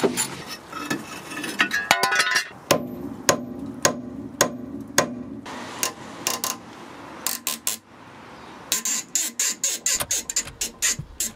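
Ratchet wrench with a 10 mm socket clicking in short runs while undoing the bolts of a car's rear brake caliper shield: a quick run at first, slower single clicks in the middle, and another quick run near the end.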